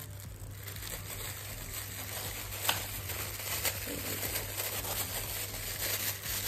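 Thin clear plastic bag crinkling and rustling as fingers work its tied top open, with a couple of sharper crackles around the middle.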